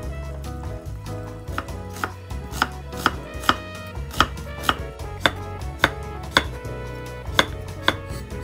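Kitchen knife slicing onion and carrot on a wooden cutting board: a steady run of sharp knocks, about two a second, starting about a second and a half in.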